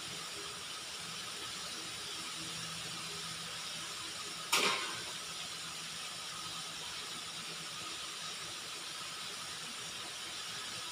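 Chicken deep-frying in a wide pan of hot oil, a steady sizzling hiss. A single sharp knock sounds about four and a half seconds in.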